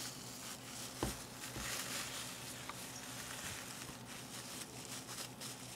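Quiet room tone: a steady low electrical hum under faint hiss, with a soft knock about a second in and a duller thud just after.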